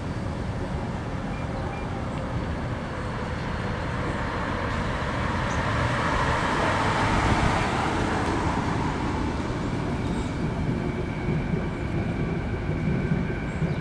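Road traffic noise, with a passing vehicle that swells to its loudest about six to eight seconds in and then fades.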